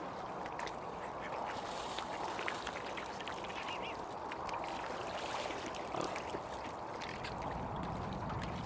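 Mallard ducks quacking continuously.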